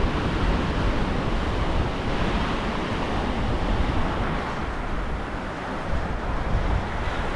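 Wind buffeting an unshielded microphone in an uneven low rumble, over the steady wash of ocean surf on a beach.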